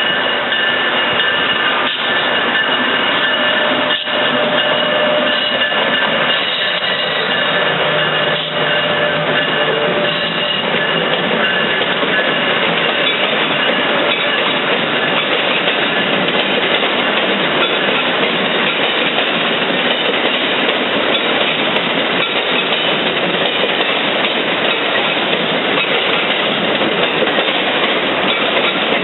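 A train passing on the tracks: a steady, loud rush of wheels on rail, with a few thin high squealing tones over the first ten seconds or so.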